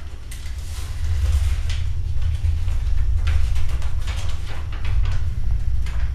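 A steady low rumble with sheets of paper rustling several times as they are unfolded and handled.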